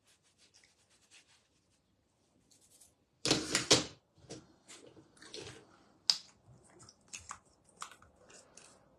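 Irregular small clicks and rustles from handling small objects, with one louder rustle lasting under a second about three seconds in.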